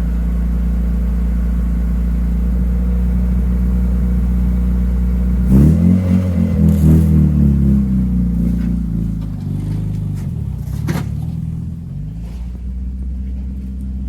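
Mitsubishi Mirage's engine idling steadily after a start following two weeks unused, then revved several times, the pitch rising and falling, before settling back toward idle. A sharp click about eleven seconds in.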